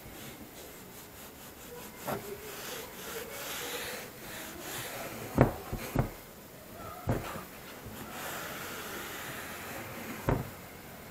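A cloth rag rubbing along a long curved steel blade lying on a tile floor, then several sharp knocks as the blade is shifted on the tiles. The loudest knocks are a pair about half a second apart, roughly halfway through.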